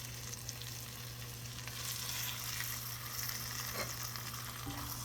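Skin-on chicken pieces sizzling as they fry in melted butter in a Dutch oven, a steady crackling hiss that grows louder about two seconds in.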